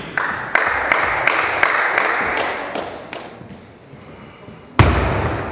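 Brief clapping from a small crowd between table tennis points, fading out after about three seconds. Near the end comes a sudden loud thump.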